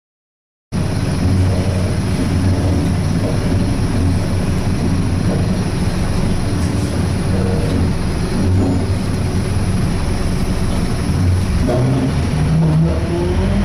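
Inside a Scania K230 single-deck bus under way: the engine and driveline drone steadily, low and loud, with the loud groaning that the uploader finds abnormal for this bus. The sound cuts in suddenly about a second in, and a few tones rise near the end as the bus pulls harder.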